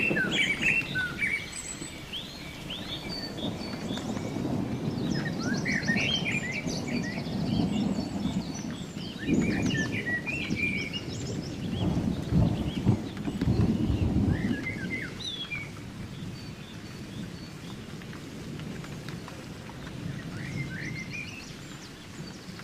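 Several birds chirping and trilling over a low rumble; the rumble swells through the middle, is loudest a little past halfway, then eases off.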